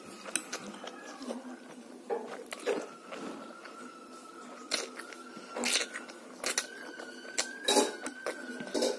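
A child slurping and chewing instant noodles close to the microphone, with short wet mouth sounds every second or so.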